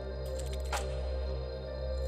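Background music: a calm ambient track over a steady, sustained bass, with one sweeping high sound a little under a second in.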